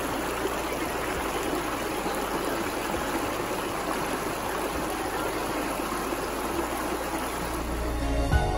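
Shallow stream rushing over rocks: a steady wash of running water. Music comes in near the end.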